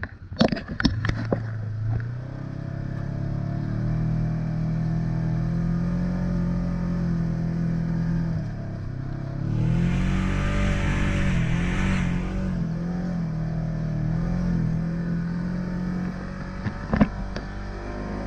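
ATV engine running at a steady note. For a few seconds in the middle its pitch wavers up and down while a hissing rush rises and falls. There are a few sharp clicks near the start and again near the end.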